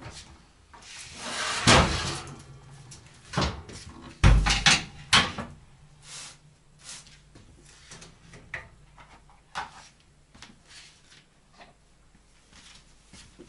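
Oven door opened and shut and a metal baking tray pulled out and set down on the stovetop: a scraping noise ending in a loud knock about two seconds in, then a heavy thud and a few sharp clanks around four to five seconds, with lighter knocks afterward.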